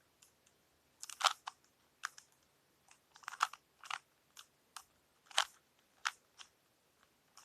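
Plastic Rubik's Cube layers being turned by hand during a solve: irregular sharp clacks and clicks, a few a second.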